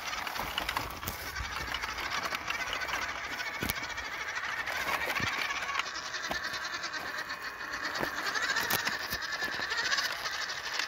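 Electric motor and gearbox of a WPL C24-1 RC crawler truck running with a high whine that wavers in pitch, with scattered clicks of its tyres crunching over stones.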